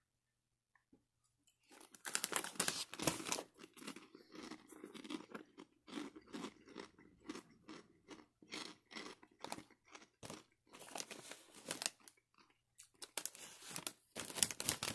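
Someone crunching and chewing a puffy fried pork rind (a habanero pork cloud). The crunching starts about two seconds in as a quick run of crisp crunches and goes on as irregular crunchy chews.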